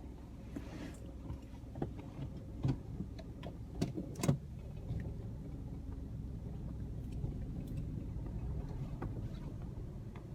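Low steady rumble of a car heard from inside the cabin, with a few short sharp clicks and knocks clustered between about two and four and a half seconds in.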